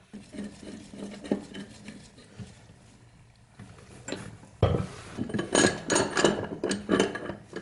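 Metal clicking and clinking of a wrench and chrome fittings as a braided supply line's nut is fitted onto a chrome straight stop valve and tightened. The clinks are light and sparse at first and turn louder and busier past the middle.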